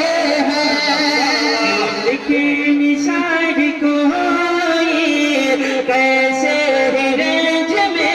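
Two men singing a naat, an Urdu devotional poem in praise of the Prophet, into microphones, with long held notes that waver in pitch.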